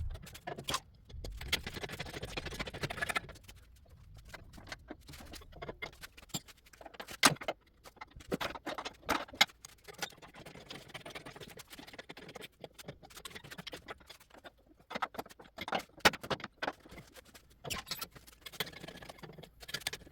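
Irregular light clicks and knocks at uneven intervals over a faint low background noise.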